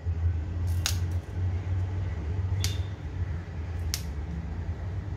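Fresh green chillies snapped into pieces by hand, three crisp snaps a second or two apart, over a steady low hum.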